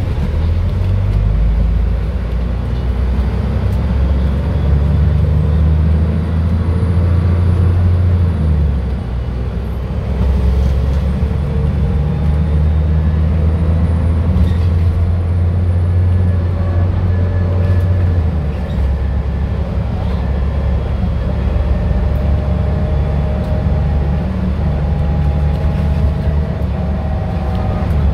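Dennis Trident double-decker bus's diesel engine running under way. The engine note pulls strongly, dips briefly about a third of the way in, pulls again, then eases to a lower, steadier note for the last third.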